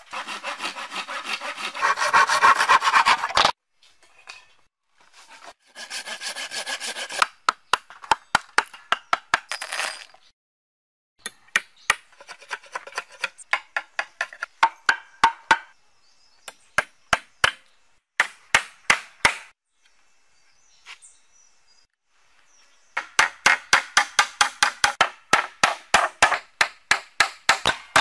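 Hand-sawing through a wooden plank in two long rasping runs, then repeated sharp blade strokes shaving the end of a wooden stake to a point. Near the end, a fast even run of hammer blows driving nails into a board.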